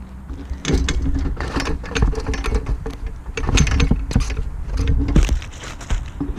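Chain-link fence and its metal gate rattling and clinking as a person climbs over it, in irregular bursts of rattles and knocks over a low rumble.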